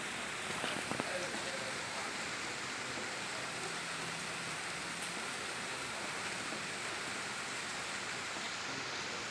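Heavy rain falling steadily, a dense even hiss of drops on surfaces, with a few louder taps about a second in.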